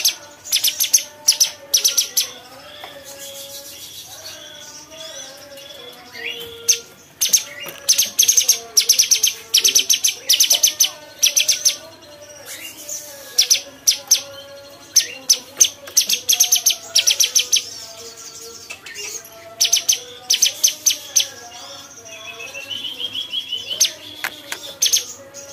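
A cucak cungkok songbird singing in repeated bursts of rapid, sharp high notes, the fast rattling 'tembakan' phrases prized in song-bird training. A softer warbling chatter runs underneath, and a short rising trill comes near the end.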